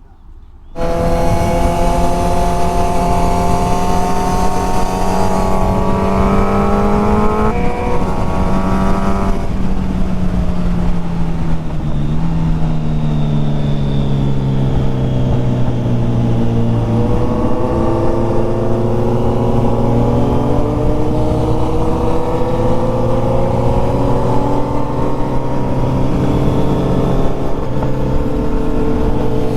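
Sport motorcycle engine heard from on board, pulling hard with a rising pitch and a gear change, then easing off with falling pitch before slowly accelerating again.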